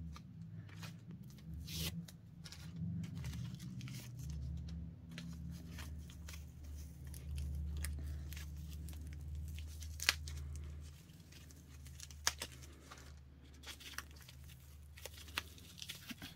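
Packaging being handled: rustling and crinkling, with scattered clicks and taps, the sharpest click about ten seconds in, over a low steady hum.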